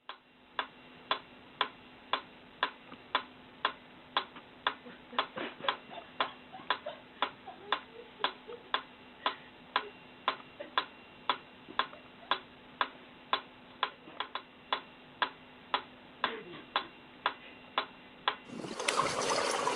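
Regular sharp clicks, about two a second, over a faint steady hum; the clicking stops shortly before the end.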